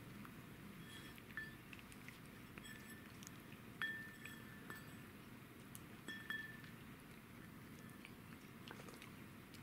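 Domestic cat chewing pieces of deer bone, faint crunching and small clicks, with three short ringing clinks against a ceramic bowl about one and a half, four and six and a half seconds in.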